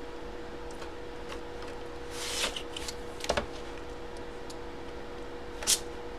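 Cardboard packaging and a hard plastic graded-comic slab being handled and slid out of a box: a rubbing swish about two seconds in, then a few sharp clicks, over a steady low hum.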